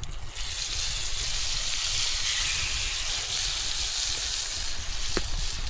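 Soaked French toast sticks sizzling in a hot buttered pan: a steady, bright hiss that starts suddenly just after the opening, over a low rumble.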